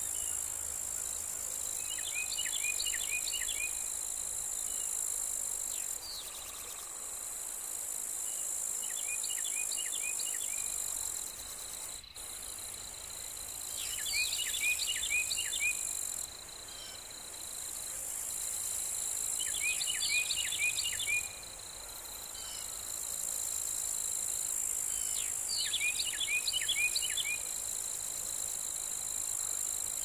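Steady high-pitched chorus of field insects such as grasshoppers and cicadas. Over it, a songbird repeats a short phrase of five or six quick down-slurred whistles five times, about every six seconds.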